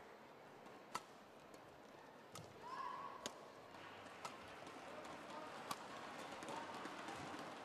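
Badminton rally: five sharp racket strikes on the shuttlecock at roughly one-second intervals, with a short squeak about three seconds in and faint arena crowd noise behind.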